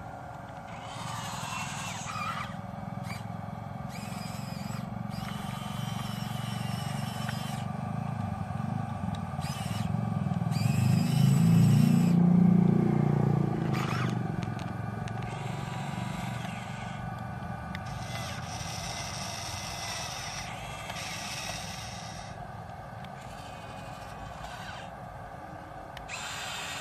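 Small electric motors and gears of an RC toy excavator whirring in short spells that start and stop, over a steady low hum. The low hum swells and fades about halfway through.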